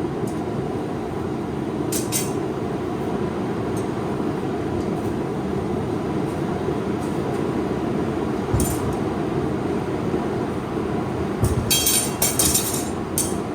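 Steady roar of a running forge, with a few light metal clinks of steel and tools: one about two seconds in, another past the middle, and a quick cluster of them near the end.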